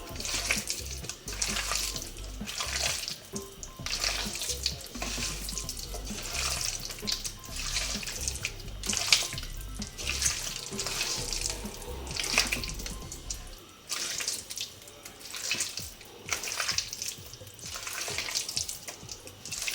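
Raw chicken pieces being mixed by hand in a thick marinade of egg, cornflour and spice paste: irregular wet squelching and squishing.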